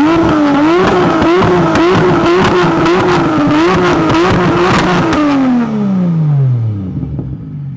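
MK4 Toyota Supra's turbocharged 2JZ inline-six revved up from idle and held high, the revs bobbing up and down repeatedly with sharp crackles. About five seconds in it is let go and falls smoothly back to idle.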